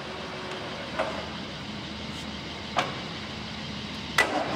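BMP Voghera heavy-duty lathe running with a steady mechanical hum while its feed-gearbox lever is shifted to a faster feed rate, giving three sharp metallic clunks, the last and loudest near the end. A low, steady hum sets in after the last clunk.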